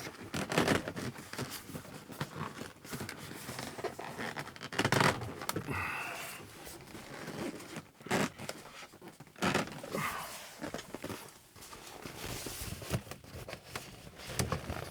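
Heavy sleeper-curtain fabric rustling and scraping as it is pushed and worked into the narrow gap between the cab wall and the sleeper cabinets, with irregular sharp crinkles and scuffs.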